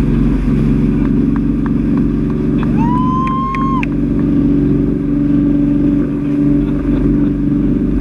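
Speedboat engine running steadily at speed, a loud constant drone. About three seconds in, a brief high-pitched tone rises and holds for about a second.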